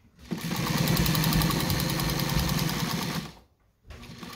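New Home SKY sewing machine running at speed, its needle stitching rapidly through thick split leather for about three seconds, then stopping.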